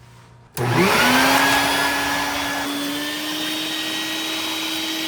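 Wet/dry shop vacuum switched on about half a second in, its motor spinning up to a steady whine and running, sucking up leftover water from the old water heater.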